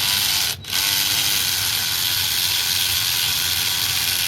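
Cordless 3/8" electric ratchet wrench running on a 20V DeWalt battery: a short trigger burst, a brief stop, then one steady run.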